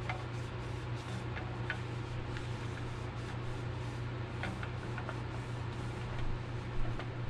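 A cloth wiping and rubbing a plastic leaf-blower fuel tank as it is turned in the hands, with a few faint light ticks from handling, over a steady low hum.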